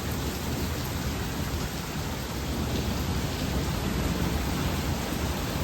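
Heavy thunderstorm rain pouring down in a steady, even hiss, with a constant low rumble underneath.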